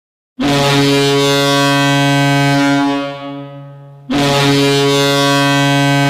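University of New Hampshire Wildcats hockey goal horn, with added reverb, sounding two long, steady blasts. The first starts about half a second in and fades away in a reverberant tail after about two and a half seconds. The second starts about four seconds in.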